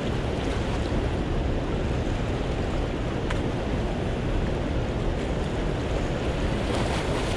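Steady rushing noise of choppy river water below a dam, mixed with wind on the microphone.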